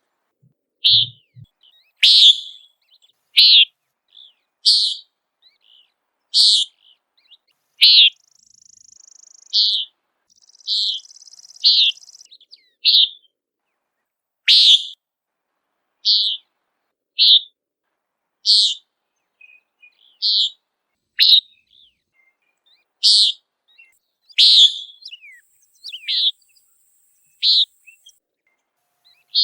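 Common nighthawk giving its short, nasal "peent" flight call over and over, about one call every second and a half. Faint, steady high buzzing sounds in the background twice.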